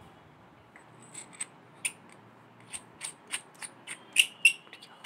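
Small metal parts of a color-sorter ejector valve clicking and tapping together as they are fitted by hand: about a dozen sharp, uneven clicks, the two loudest near the end.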